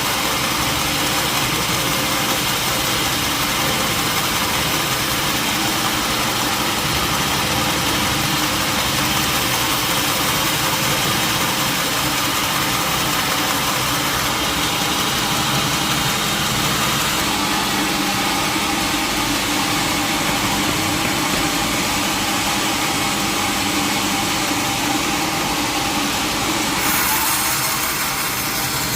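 Sawmill machinery engine running steadily at a constant, loud level.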